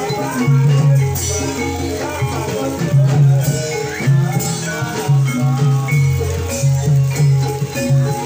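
Live gamelan-style ensemble music for a kuda kepang (ebeg) horse dance: interlocking struck melodic notes in a repeating pattern over strong, steadily pulsing low notes. A deeper low tone swells about a second in and again about six seconds in.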